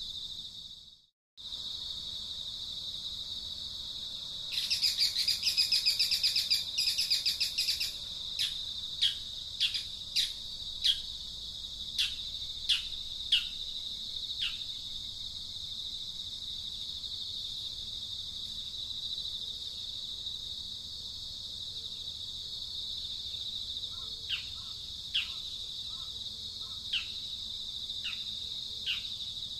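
Steady high insect chirring with bird calls over it: a rapid trill about five seconds in, then a run of short, sharply falling chirps, with a few more near the end. The sound cuts out briefly about a second in.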